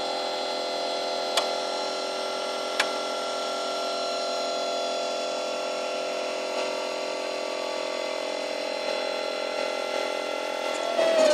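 Zmorph 2.0 S 3D printer's stepper motors whining at a steady pitch with several tones as the print head makes a long straight move while laying down the first layer of PLA. Two sharp clicks come about a second and a half apart in the first three seconds, and the pitch starts to slide near the end.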